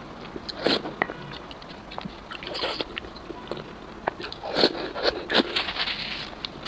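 Close-up eating sounds of wide noodles in a thick sesame sauce: wet slurps and chewing in several short bursts, with small clicks of a wooden spoon against the ceramic bowl.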